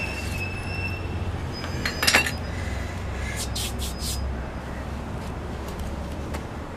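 Steady low outdoor rumble, with a thin high squeal in the first second and sharp clicks and knocks about two seconds in and again around three and a half to four seconds, as a hand handles porcelain toilets.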